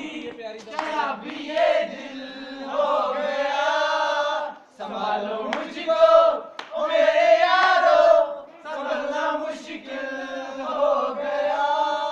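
A group of young men singing together, loud sung phrases with held notes and short breaks between lines.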